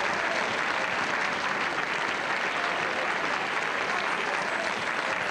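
Audience applauding steadily, a dense even clapping from a full house.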